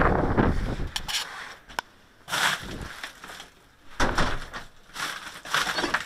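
Rustling and crunching as a person steps up to a hut door, a few sharp clicks about a second in, then about four heavy, scuffing footsteps.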